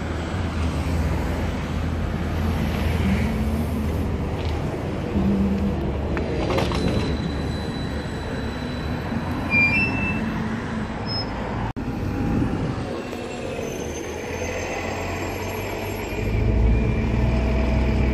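Street traffic with an electric trolley bus driving off through an intersection. After a sudden cut, another trolley bus pulls in close: its electric drive whines in slowly rising tones over a low rumble that grows louder near the end.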